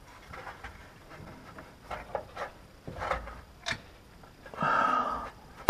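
Scattered light clicks and knocks of hands working a locking clip over a gear-shift cable end at the gearbox. There is a brief strained grunt or breath near the end, then a sharp snap right at the end as the clip seats.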